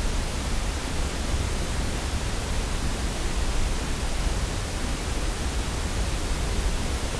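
Steady hiss of a cheap Gembird microphone and the Canon 5D Mark II's audio circuit recording a silent closet with the manual recording level turned to maximum: the noise floor of the recording chain at full gain. A low hum sits underneath.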